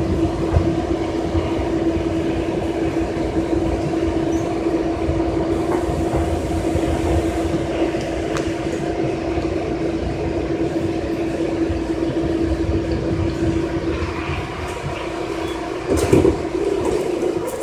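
Interior of a metro train pulling slowly into a terminal platform: steady running rumble with one held droning tone from the traction equipment. About sixteen seconds in comes a short loud clatter, fitting the doors opening once the train stops.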